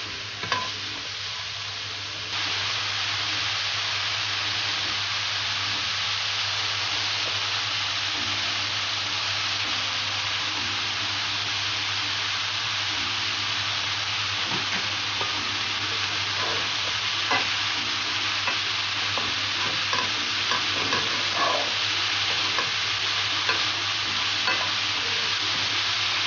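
Chopped leek, onion, chili and garlic sizzling in a little oil in a non-stick frying pan, sautéing to soften. The sizzle gets louder about two seconds in and then holds steady. A wooden spatula scrapes and taps the pan now and then through the second half.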